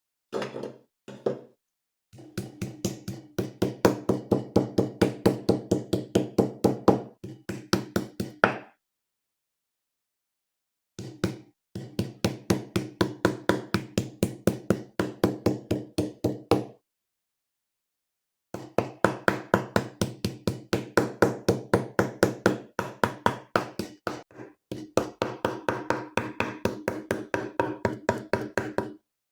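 Rapid, even knocking, about five strikes a second, in four runs of a few seconds each with short pauses between.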